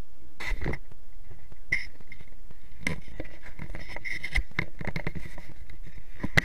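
Camera handling noise: an irregular run of knocks, clicks and rustles as the camera is picked up and carried, starting about half a second in.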